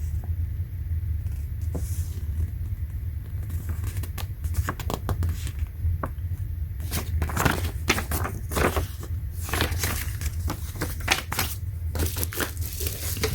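Hands handling a product and its packaging: crinkling, scraping and clicking, more frequent in the second half, over a steady low hum.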